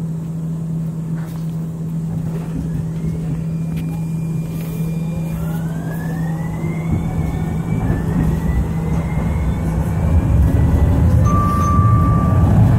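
Siemens S200 light rail vehicle accelerating: the traction drive's whine rises steadily in pitch from about a third of the way in, over a steady low hum and a wheel-on-rail rumble that grows louder. A short, steady high tone sounds near the end.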